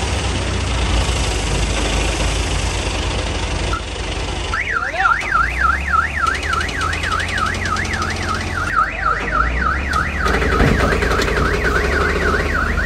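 Heavy machinery engines running. About four and a half seconds in, a warbling electronic warning alarm starts over them, its pitch sweeping up and down about three to four times a second, and it keeps going.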